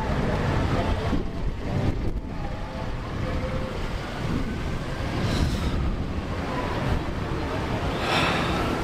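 Wind buffeting a handheld camera's microphone over street traffic.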